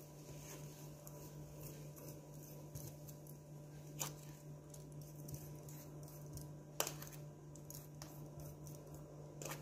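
Quiet handling of a metal spoon and fish in a stainless steel bowl while spreading spice paste: faint soft scraping with two sharper clicks, about four seconds in and near seven seconds. A steady low hum runs underneath.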